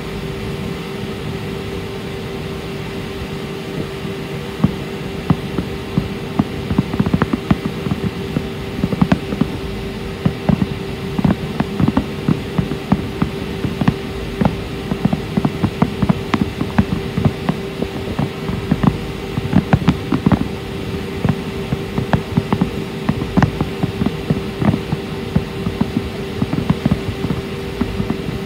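Fireworks display going off: from about four seconds in, a rapid, irregular run of bangs and crackles, several a second, over a steady hum.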